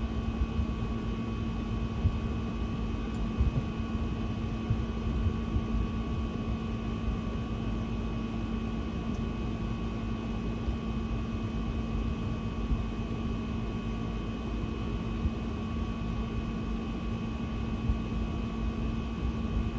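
Steady mechanical hum with a constant low tone and fainter higher tones, with a few soft knocks over it.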